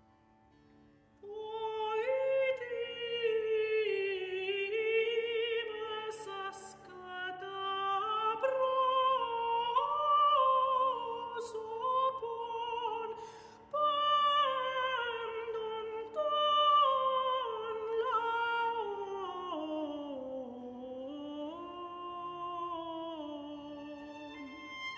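Soprano singing long, slow phrases with vibrato over a steady tampura drone, entering about a second in after near silence; the line sinks lowest near the end.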